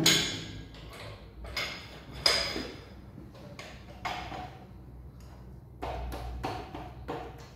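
Irregular sharp metallic clanks and knocks from tools and steel parts being handled around a gearbox, the loudest right at the start, some ringing briefly.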